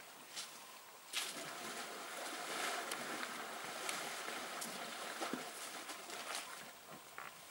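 African elephants wallowing in a muddy waterhole: irregular wet splashing and sloshing of mud and water, starting with a sharp splash about a second in and easing near the end.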